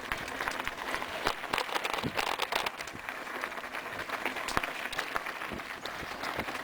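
Mountain bike rolling down a rocky, overgrown dirt road: tyres crunching over stones and brushing through grass, with many sharp clicks and rattles from the bike.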